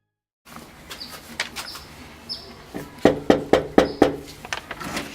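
A few short, falling bird chirps over a background hiss, then a quick run of about five sharp knocks or thumps, the loudest sounds here.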